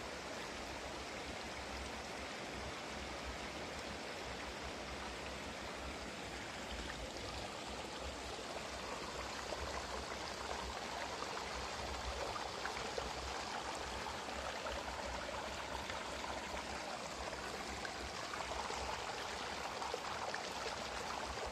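A steady, even hiss of background noise that holds at the same level throughout.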